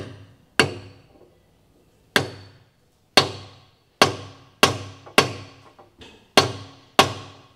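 Copper mallet striking a steel gudgeon pin used as a drift, driving a valve seat insert into a Lotus Twin Cam's aluminium cylinder head. About nine blows at an uneven pace, each ringing briefly, as the insert is seated until it bottoms out solid in its bore.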